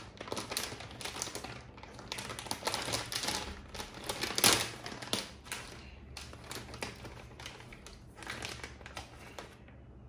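Plastic sweet packaging of marshmallows crinkling and crackling as it is handled, in quick irregular crackles with one louder crackle about four and a half seconds in, dying away near the end.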